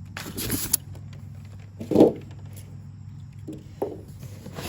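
Parts and packaging of a pressure washer pump being handled during an unboxing. A rustle comes first, then a louder knock about two seconds in and a few lighter knocks, over a steady low hum.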